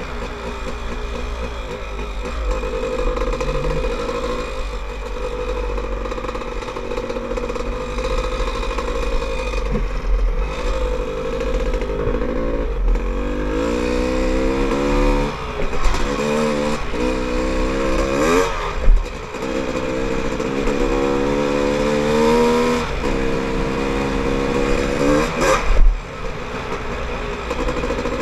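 Dirt bike engine under way on a dirt trail, with wind buffeting the helmet-mounted microphone. For the first half it runs fairly steadily. From about halfway on it revs up in four or five rising pulls, each one breaking off and dropping before the next, as the throttle is worked or gears are shifted.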